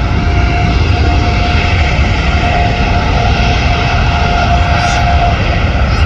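Jet airliner engines running loud, a heavy steady rumble with a steady whine on top that fades out about five seconds in.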